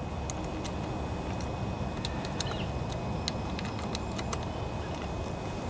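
Scattered light metal clicks of a small socket being worked on carburetor mounting studs as they are tightened, over a steady low rumble.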